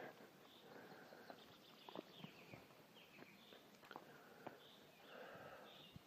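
Near silence: faint short bird chirps scattered throughout, with soft footsteps on a wet dirt trail.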